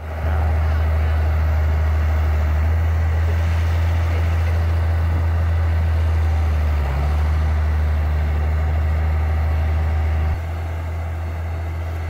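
Farm tractor's diesel engine running steadily under load as its front-end loader pushes through deep snow. The engine sound dips briefly partway through and drops a step in loudness about ten seconds in.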